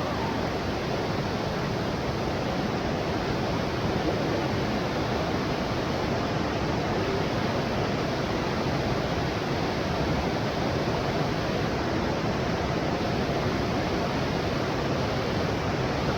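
Cascading waterfall on Cataract Falls, a steady rush of falling water.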